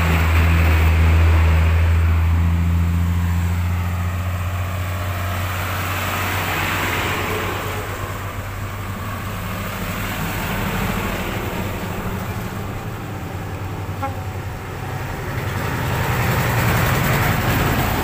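Road traffic passing close by. A heavy truck's engine hum fades out over the first few seconds, then the rushing tyre and engine noise of passing vehicles swells and fades several times.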